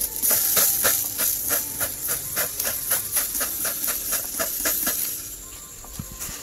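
Marinated meat sizzling on a hot barbecue grill: a loud hiss with rapid crackles, about four or five a second, that dies down about five seconds in.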